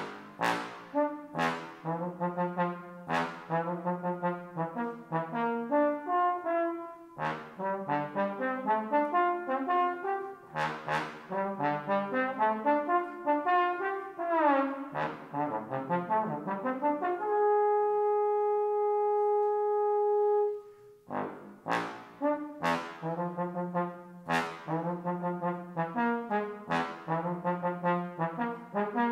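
Unaccompanied bass trombone playing a fast passage of short, sharply accented notes. About halfway through it slides down in pitch and back up into one long held note of about three seconds, then the quick accented notes resume.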